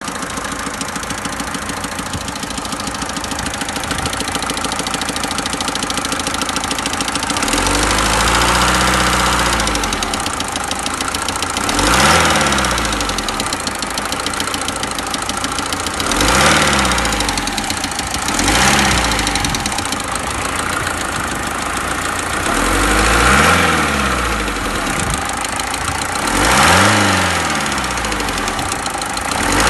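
Mercedes-Benz OM601 four-cylinder diesel engine idling with a knock, then revved briefly about six times, each rev rising and falling back to idle. The knock is one the owner cannot explain.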